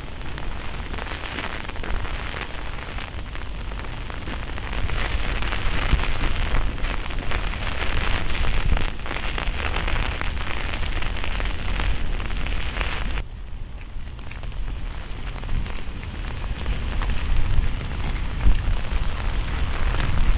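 Steady rain falling, heard as a dense even hiss over a low rumble. About two-thirds of the way through, the rain hiss drops away abruptly, then slowly builds again.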